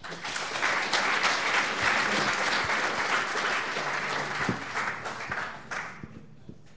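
Audience applauding: many hands clapping, starting suddenly and dying away after about five to six seconds.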